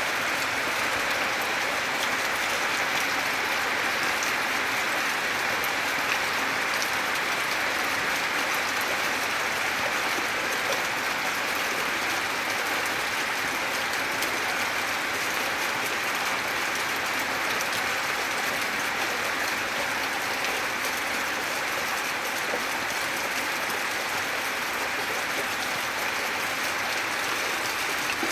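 Steady, gentle rain falling, an even hiss with scattered drop ticks.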